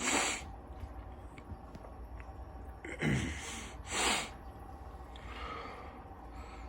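A person breathing close to the microphone: three short, noisy exhales or sighs, one at the start and two about three and four seconds in, over a low steady hum.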